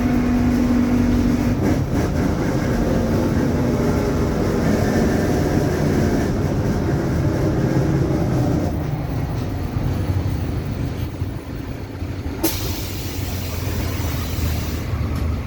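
Inside a Mercedes-Benz OF-1721 BlueTec5 bus: the drive train running, with a differential whine that falls in pitch as the bus slows, after which the noise eases off. Near the end comes a sharp click and then a hiss of air lasting a couple of seconds.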